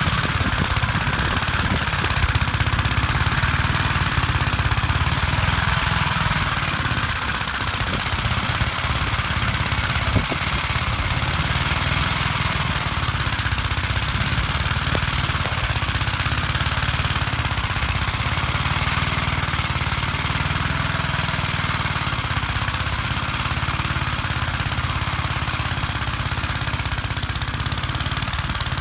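1959 Gravely Model L walk-behind tractor's single-cylinder engine running steadily under load, driving its snowblower attachment through deep snow, with a constant hiss of thrown snow over the engine.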